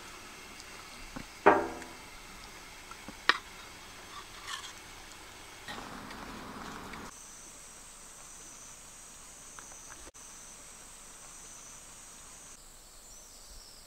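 A utensil strikes a dish sharply about one and a half seconds in, with a short pitched ring, followed by a second sharp click and a few lighter knocks of tableware being handled. A steady high-pitched hiss sits in the background from about seven seconds in until shortly before the end.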